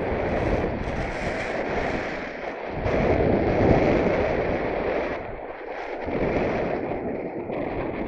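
Wind buffeting the microphone: a steady rush that swells and eases in gusts, loudest about three seconds in.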